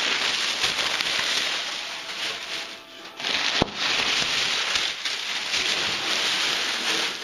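Plastic air-cushion packing crinkling and rustling as it is pulled out of a cardboard box. The crackle comes in two long stretches with a short lull about three seconds in, and there is one sharp snap soon after the lull.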